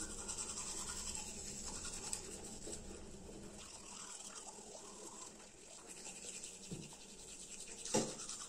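Two people brushing their teeth with manual toothbrushes: soft, rapid scrubbing of bristles against teeth.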